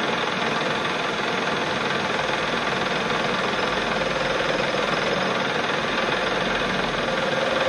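Metal lathe running steadily, spinning a Bosch alternator rotor while a carbide tool machines its copper slip rings down to true them. A faint whine comes and goes.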